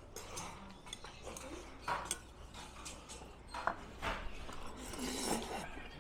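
Cutlery clinking and scraping against dishes during a meal, with scattered sharp clicks and a longer scraping stretch about five seconds in.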